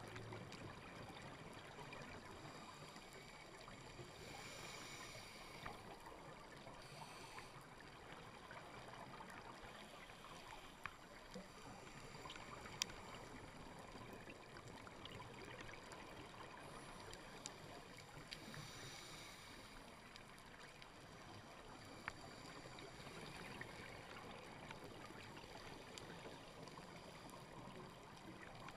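Faint underwater hiss heard through a camera housing, with scattered sharp clicks and a few short bursts of hissing bubbles from a scuba diver's breathing.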